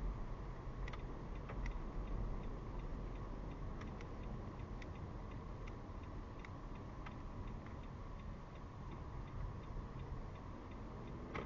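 Car's turn-signal indicator ticking about once every 0.8 seconds, over a low steady rumble of engine and road noise.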